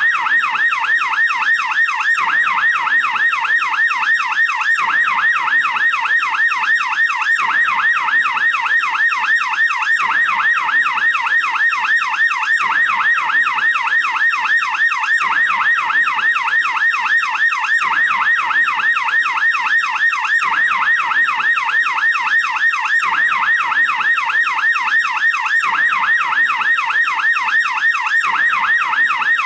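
American police car yelp siren sounding continuously, its pitch sweeping rapidly up and down about four times a second.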